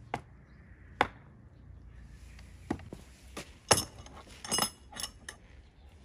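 A hammer knocks twice on the wooden wedge holding a carved board in a sawhorse. About three seconds in comes a run of sharp metallic clinks and knocks as metal hand tools such as pliers are handled and set down on the wood.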